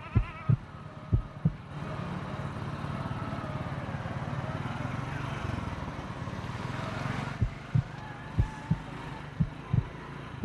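Low double thumps repeating about once a second like a heartbeat, over the background murmur of a busy livestock market. For a few seconds in the middle the market noise swells and covers the thumps, which return near the end.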